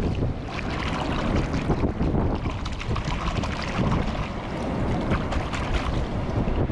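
Wind buffeting the microphone over the sound of surf washing on a beach, with a steady low rumble and crackly splashing.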